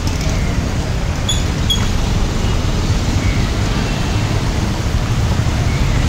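Steady traffic and vehicle noise heard from a bike moving slowly through wet city streets: a continuous low rumble, with two short high chirps about a second and a half in.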